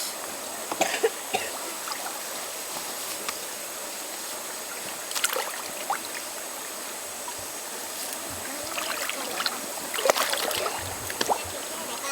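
River water flowing steadily, with scattered light knocks and clicks, the loudest about ten seconds in.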